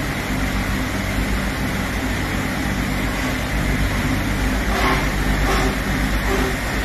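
Steady low engine rumble with a droning hum, as of a motor idling, with a couple of faint short sounds about five seconds in.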